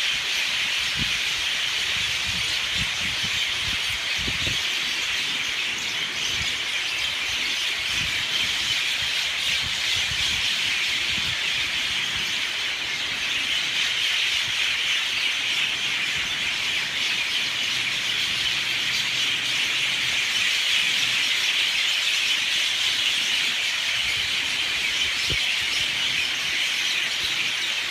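A huge flock of birds calling all at once in a dense, steady, loud din with no break, the chorus they make every evening and morning.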